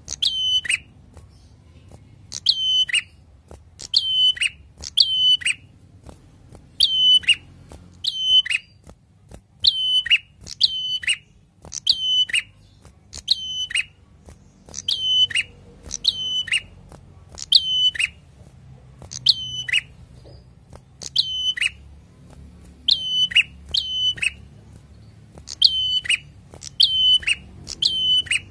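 Caged ashy tailorbird calling over and over: loud, sharp, identical notes about once a second, sometimes two in quick succession, each ending in a downward slur.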